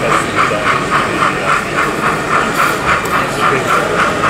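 Model steam locomotive sound chuffing steadily at about four beats a second, with a hissy edge, over the murmur of an exhibition hall crowd.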